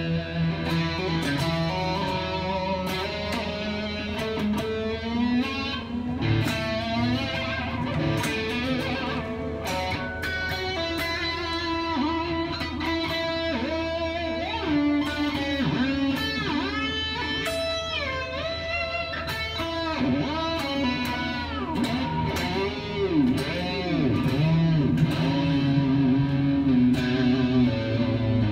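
Ibanez JEM 77v electric guitar played through a Mesa Boogie Mark V tube amp. Lead lines with quick runs of notes, broken by repeated whammy-bar dives and pull-backs on its Edge Pro Floyd Rose tremolo that sweep the pitch down and back up, most often in the second half.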